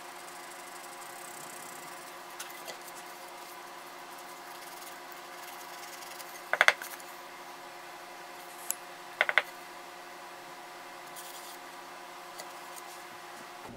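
Hand sanding of carved walnut: folded sandpaper held in the fingers rubbing and scratching faintly over the wood, under a steady hum. Two short clusters of sharp clicks, a couple of seconds apart, stand out around the middle.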